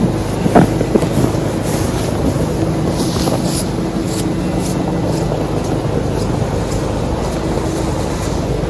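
Steady low drone of a distant engine, which the uploader takes for a snowplow, with a plastic snow dump scraping snow and one sharp knock about half a second in.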